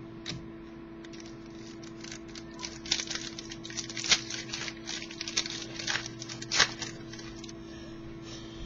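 Football trading cards being handled: a run of light clicks and rustles, densest in the middle, as cards slide against each other and are flipped, over a steady electrical hum.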